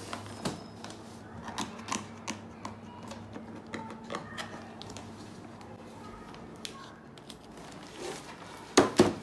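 Gift-wrapping paper crinkling, rustling and tearing as a wrapped present is unwrapped by hand, with many small irregular crackles and a couple of louder sharp sounds near the end.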